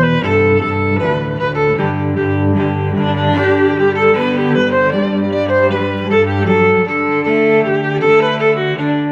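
Background music played on bowed strings, violin and cello, in steady held notes.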